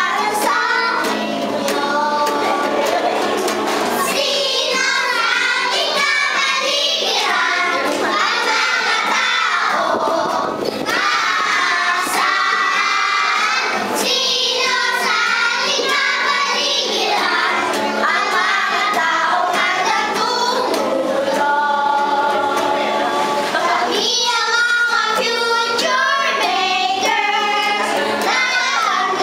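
Young children singing a song together, led by voices close to a microphone.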